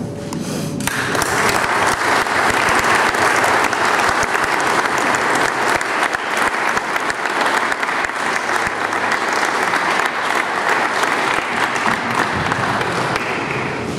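Audience applauding. The clapping starts about a second in and goes on steadily.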